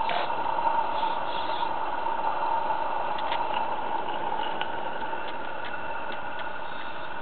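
A garden-scale model locomotive running along the track pulling covered wagons. It makes a steady running sound with a few faint clicks from the wheels on the rails.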